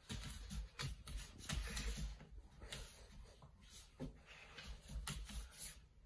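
Scuffling as a Boerboel puppy tugs and drags at a jeans leg on a wooden floor: paws scrabbling, denim rubbing and a run of irregular clicks, with dull low thumps.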